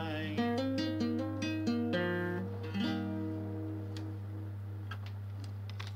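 Acoustic guitar playing the closing bars of a folk song: a run of picked notes for about three seconds, then a final chord left to ring and fade out. A steady low hum sits underneath.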